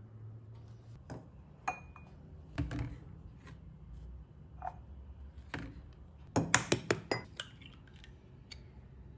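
Glass jar and bottle clinking and knocking as they are set down on a stone counter, one knock ringing briefly. About two-thirds of the way in comes a quick run of five or six sharp taps, the loudest sounds here, as an egg is knocked against a bowl's rim to crack it.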